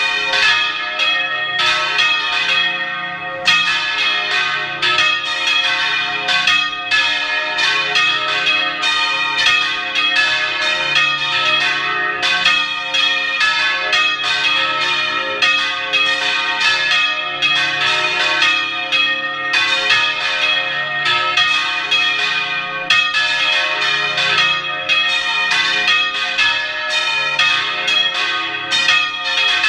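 Several church bells rung full-circle in the Spanish volteo style, heard close up from inside the bell tower. Bells of different pitches strike several times a second in a continuous peal, their tones overlapping and ringing on.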